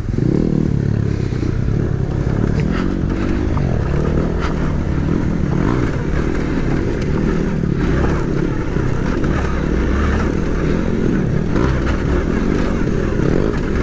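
Suzuki V-Strom 800DE's 776 cc parallel-twin engine running steadily on a rough trail, its pitch wavering as the throttle is worked. A few sharp knocks and some clatter, from stones and the bike working over rough ground, are heard along the way.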